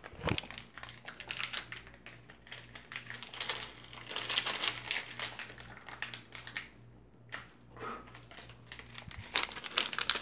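Small plastic bag of metal game tokens crinkling and rustling as it is handled and torn open with the teeth, in a rapid irregular string of short crackles that grows louder near the end.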